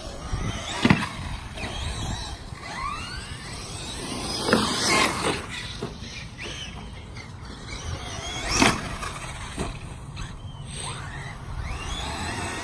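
Two 1/8-scale electric RC truggies with 1900kv brushless motors driving on grass, their motors whining up and down in pitch as they speed up and slow down. Two sharp thumps stand out, about a second in and again a little past eight seconds.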